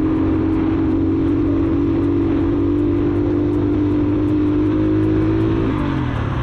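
Motorcycle engine running at steady revs while riding, then the revs fall away near the end.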